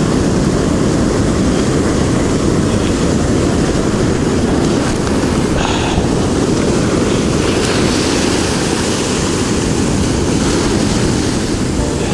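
Wind buffeting the microphone over the steady sound of ocean surf breaking on the beach.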